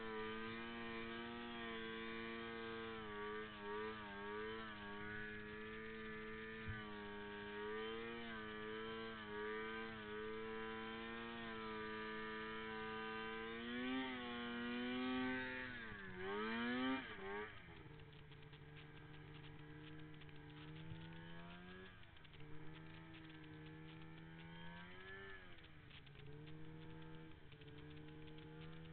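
Arctic Cat M8 snowmobile's 800 cc two-stroke engine running, its pitch rising and falling with the throttle through the turns. About halfway through it revs up sharply and swoops down and back, then runs lower and quieter with short throttle blips.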